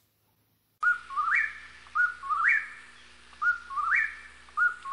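A short whistled call repeated four times, about one every 1.2 seconds, starting about a second in. Each call is a level note, a step lower, then a quick rise to a higher held note.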